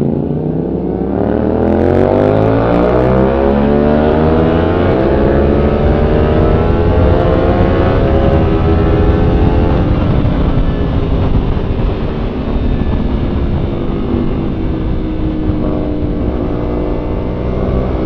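Sport motorcycle engine accelerating hard, its pitch climbing steadily for several seconds before easing off and falling as the rider rolls off, with heavy wind noise on the microphone building as speed rises.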